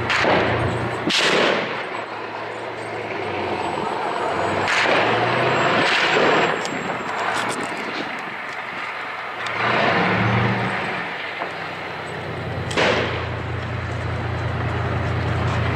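Heavy gunfire echoing among buildings: a sharp report about a second in and another near the end, each with a long rolling echo, and longer rumbling swells around five to six and ten seconds in. A steady low vehicle-engine hum runs underneath and grows stronger near the end.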